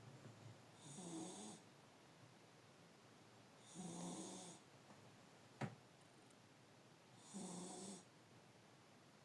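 A sleeping pet snoring in slow, even breaths: three snores about three seconds apart, each lasting under a second, with a low buzz and an airy hiss. A single sharp click comes about halfway through.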